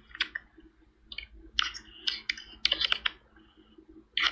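Irregular little clusters of quick, sharp clicks with short quiet gaps between them.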